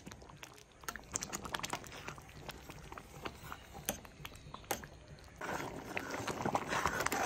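Thick jaggery payasam boiling in a pot, its bubbles popping with scattered irregular clicks. From about five seconds in the bubbling grows denser as a spoon stirs through it.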